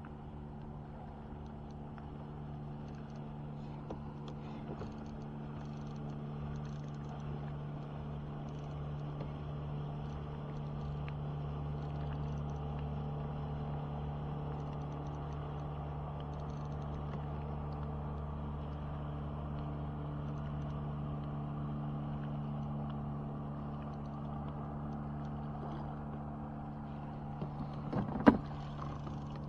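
Boat motor running steadily, a low even hum. One sharp knock near the end.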